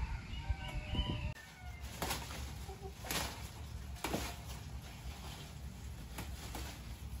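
Chickens clucking softly, with several sharp taps and a steady low rumble underneath.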